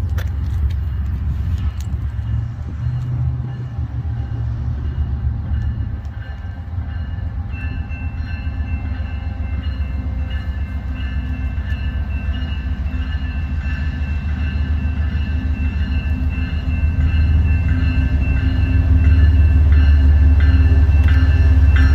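Low rumble of an approaching BNSF diesel freight locomotive, growing louder over the last few seconds as it nears.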